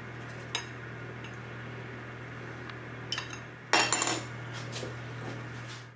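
Cutlery and dishes clinking: a fork tapping against a ceramic baking dish, then a louder cluster of glassy clatters about two-thirds of the way through, as of a glass lid being set on the dish. A steady low hum runs underneath.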